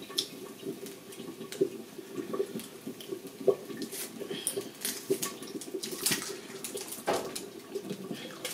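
Tomato stew frying and bubbling hard in a covered pot, with a steady crackle and frequent small pops and spatters, a sign that the heat is too high.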